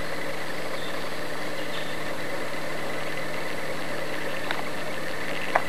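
Steady hum and hiss of an old mono camcorder recording, with fixed tones that do not change, and two faint clicks near the end.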